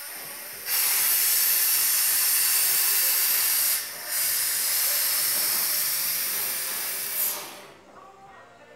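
Air suspension on a bagged Toyota Hilux dumping air: a loud hiss as the truck lowers onto the ground, with a short break about four seconds in, dying away about a second before the end.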